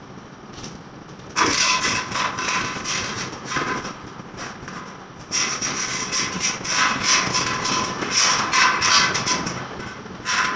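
Wall repair work: harsh, rasping noise made of many quick strokes, starting suddenly about a second and a half in, easing off for a moment, then starting again about five seconds in.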